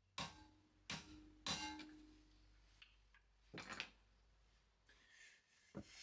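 A hammer tapping a flat-tipped screwdriver to drive the pad retaining pin into a Ducati Scrambler's rear brake caliper. About five sharp metal-on-metal taps come at uneven intervals, the second and third ringing briefly.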